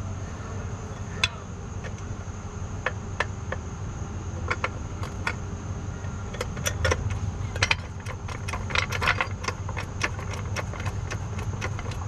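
Red Pittsburgh hydraulic floor jack being pumped by its handle, used as an improvised press to crimp a battery-cable lug: a string of light metallic clicks and clanks, sparse at first and coming faster in the second half, over a steady low hum.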